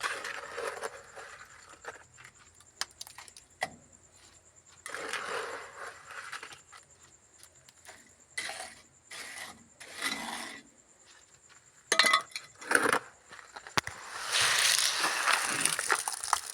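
Small metal spoon scraping and clinking against wet mortar and hard material, in several irregular bursts of a second or two, with a few sharp clinks about twelve seconds in.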